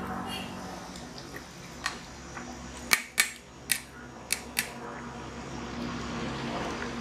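Steel skimmer ladle clinking against a large aluminium pot of boiling rice, about six sharp taps between two and five seconds in, the loudest about three seconds in, over the steady bubbling of the pot.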